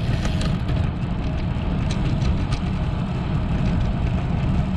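Wind buffeting the microphone of a chest-mounted camera on a moving road bike: a steady low rumble.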